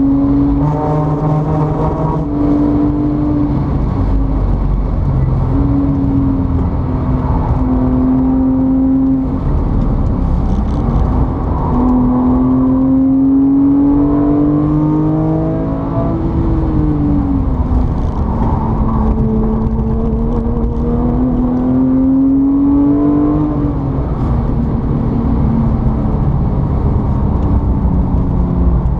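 A motor vehicle's engine running, its note rising and falling slowly over several seconds as it speeds up and eases off, over a steady rumble.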